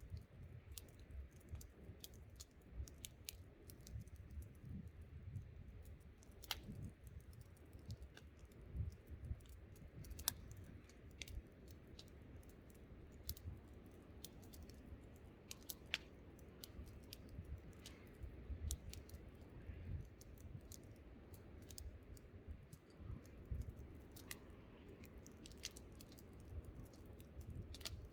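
Wood campfire crackling, with sharp irregular pops and snaps, over a low, uneven rumble of wind.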